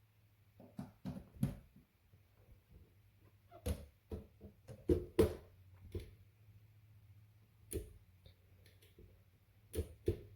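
Blender parts being handled: about a dozen irregular hard clicks and knocks over a faint, steady low hum.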